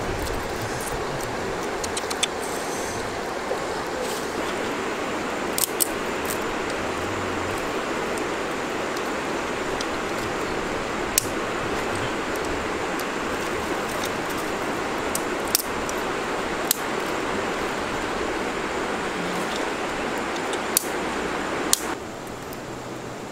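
Open wood fire burning under fish grilling on sticks: a steady hiss with scattered sharp crackling pops. It gets quieter near the end.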